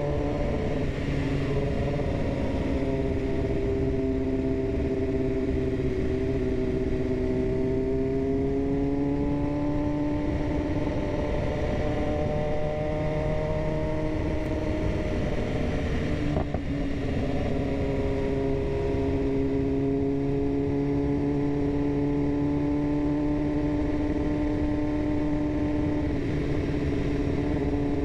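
BMW S1000RR inline-four engine running under way, its pitch slowly sinking and climbing several times with the throttle. A short knock comes about sixteen seconds in.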